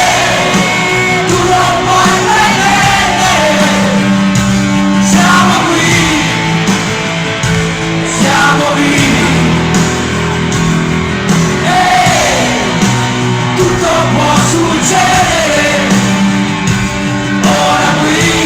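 Live amplified rock band playing an Italian rock song, with a lead voice singing over bass and guitars, heard loud and full.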